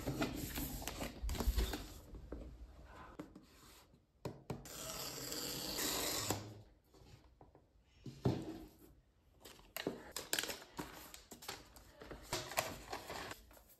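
Hands handling a cardboard laptop box, with rubbing and knocks on the cardboard. Near the middle a paper tear-strip seal is ripped off in one steady tear of about two seconds, followed by rustling of paper wrapping and small clicks as the lid comes off.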